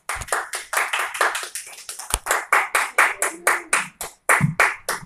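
Small audience clapping in even applause, about four claps a second, stopping near the end.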